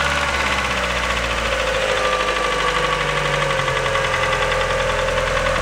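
Mazda car engine idling just after starting, with a fast, even ticking running through the idle, like a lifter tick on steroids. The noise appeared right after the spark plugs were changed; the owner wonders about low oil or the coils and wires.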